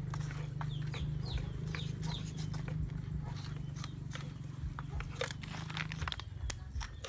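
Knife cutting and scraping water snakes on a wooden chopping block: irregular sharp clicks and crunchy scrapes. A low steady hum runs under it and stops about six seconds in.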